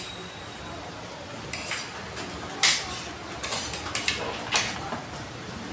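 Spoon and plates clinking and clattering as someone eats, a handful of sharp clinks with the loudest about two and a half seconds in.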